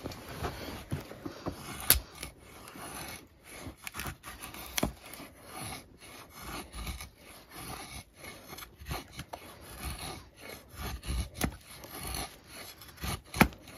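Busse Battle Mistress knife shaving curls down a split wooden stick to make a feather stick: a series of irregular scraping strokes of the blade along the wood, with a few sharp taps, the loudest about two seconds in.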